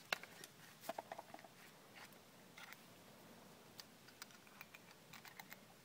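Faint, scattered light clicks and taps of tools and small metal parts being handled, with no drill running.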